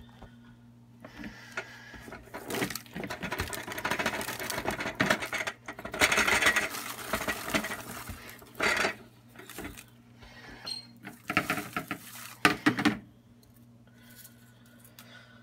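Popped popcorn poured from the popper's clear plastic dome into a plastic bowl: a rustling patter of many light taps, in two spells, with a few louder plastic clatters.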